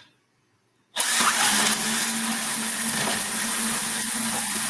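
Electric motors of an FRC competition robot running just after it is enabled: a loud, steady whir with a constant hum that cuts in suddenly about a second in.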